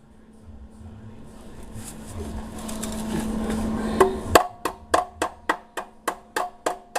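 A noisy sound building steadily louder and then cutting off, followed by a rapid run of hammer blows on sheet metal, about three or four a second, each with a short metallic ring: the dented oil pan being hammered back into shape.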